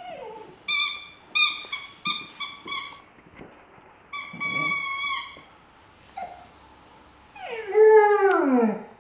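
English setter puppy whining and 'talking' to his ball: a run of about five short high-pitched whines, a longer whine about four seconds in, then a loud drawn-out moan that slides down in pitch near the end.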